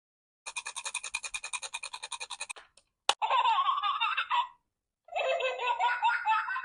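A toy's electronic voice sound: a rapid buzzing rattle of about eleven beats a second for two seconds, a sharp click, then two bursts of high-pitched giggling.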